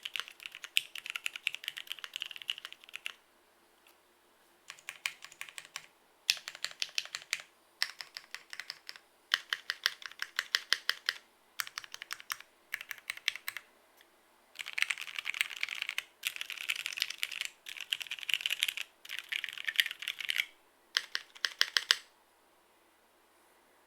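Typing on a Keycult No.1 custom mechanical keyboard with lubed vintage Cherry MX Black linear switches on a polycarbonate plate: runs of fast keystrokes in bursts of one to three seconds, separated by short pauses. The typing stops about two seconds before the end.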